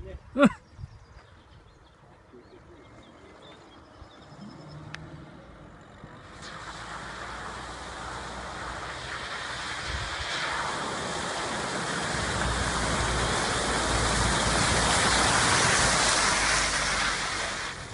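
Suzuki Jimny ploughing through shallow water and mud: a steady rushing splash that swells as it comes close and stops abruptly near the end, with a low engine rumble underneath. A short shrill cry sounds about half a second in.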